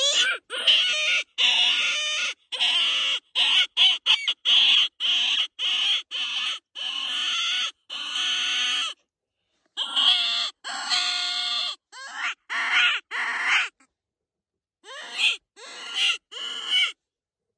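Predator call being blown to draw wolves in: a long run of short, raspy, high-pitched cries, broken by two short pauses.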